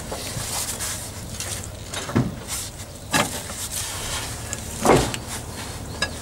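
A few metal knocks and scrapes from tools working on an XTZ T-150K tractor's hydraulic steering cylinder, trying to force its piston out. The loudest knock comes about five seconds in, over a steady low rumble.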